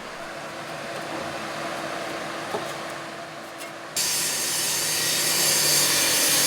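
Power tool running with a steady motor hum; about four seconds in, a much louder harsh hissing noise sets in as the tool starts working the material.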